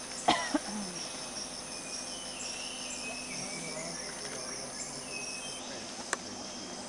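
Steady, high-pitched drone of a rainforest insect chorus with a pulsing chirp running through it. A sharp crack, the loudest sound, comes about a third of a second in, with a smaller one just after, and a few short whistled bird notes sound in the middle.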